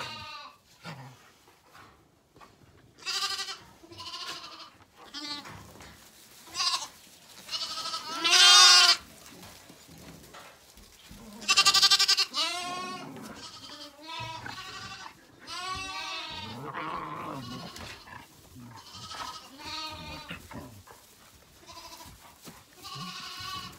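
Zwartbles lambs bleating at feeding time, calling to be fed. The calls come one after another with short gaps between them, and the loudest are near the middle.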